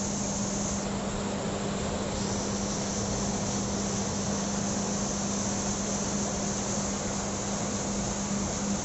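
Heavy rain falling steadily: an even, dense hiss. A steady low hum runs underneath.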